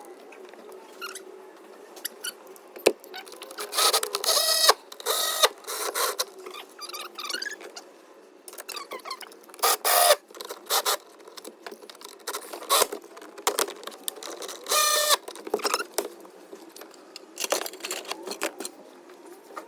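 Hard interior parts being handled and fitted: irregular squeaks, scrapes and sharp clicks, several of them bursts about half a second long.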